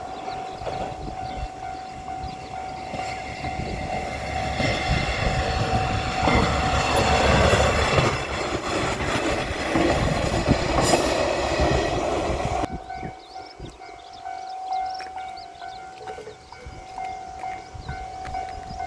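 A level-crossing warning signal rings steadily while a JR Shikoku 1000-series diesel railcar passes. The railcar's engine and wheel noise builds up and is loudest around the middle, then drops away suddenly about two-thirds of the way through, leaving the crossing signal ringing on its own.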